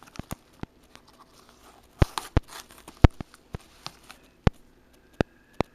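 Objects and packaging being handled during an unboxing: a string of sharp clicks and knocks, with a brief crinkling rustle of packaging about two seconds in.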